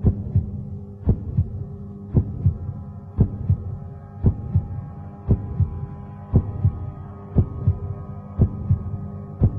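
A heartbeat-like sound effect: a low double thump repeating about once a second over a steady low drone.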